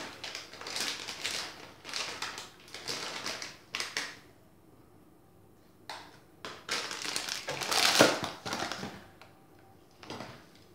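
Chocolate chips and ricotta filling being handled and mixed in a bowl: irregular rustling, scraping and clicking. There is a quiet pause of about two seconds near the middle, and the loudest scrape comes about eight seconds in.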